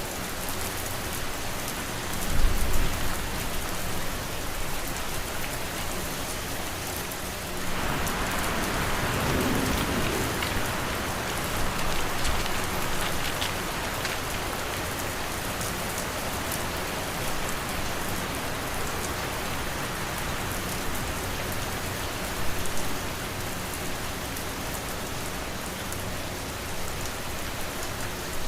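Steady rain ambience: an even hiss of rain falling on a surface. About two seconds in there is a short low rumble, and from about eight seconds in the noise swells louder for several seconds before easing back.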